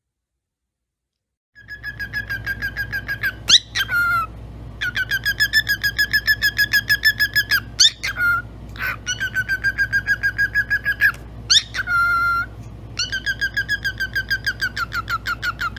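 A parrot giving long runs of rapid, evenly repeated chirps, about six a second, broken now and then by short rising whistles. It starts about a second and a half in, after silence.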